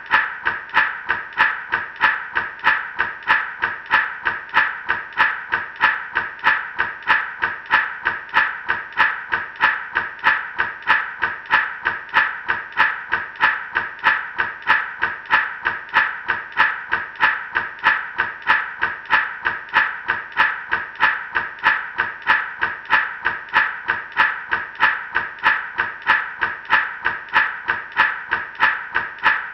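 Gourd rattle shaken in a steady, even rhythm, about two and a half shakes a second.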